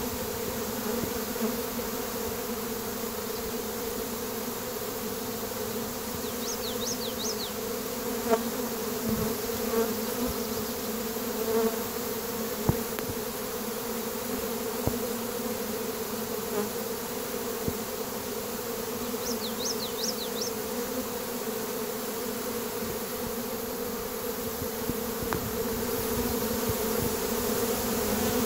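Honeybees flying around a hive entrance, their wings making a steady, unbroken hum.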